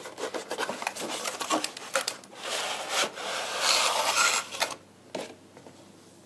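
Cardboard and clear plastic toy packaging being handled. First comes a run of small taps and clicks, then about two seconds of steady scraping as the cardboard display tray slides out of its box. The scraping stops sharply about three quarters of the way through.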